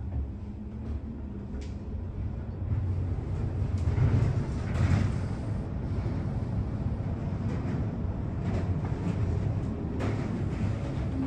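Cabin of a Schindler 7000 high-speed traction lift travelling fast in its shaft: a steady low rumble with air noise, getting louder about three seconds in and peaking near the middle.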